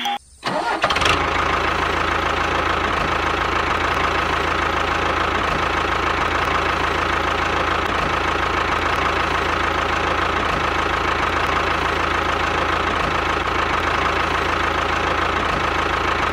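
Tractor engine starting up about a second in, then running steadily at an even idle.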